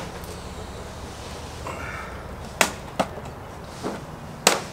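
Sharp cracks and snaps from a flat-screen TV's casing being wrenched apart by hand along a chainsaw cut: two loud cracks in quick succession past the middle and another near the end.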